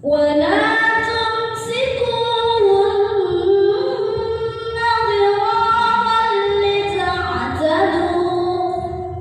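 A female voice chanting Qur'anic recitation in one long, ornamented melodic phrase, the pitch sliding and wavering through its turns, held for nearly the whole nine seconds.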